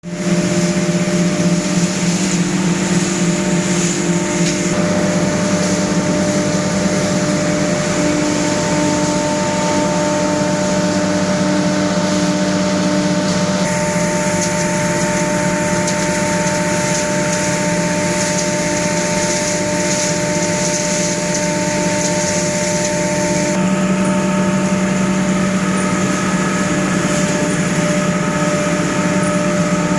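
Sawdust rotary drum dryer system running: a loud, steady drone of motors and fans with several hum tones over a hiss, shifting in character a few times.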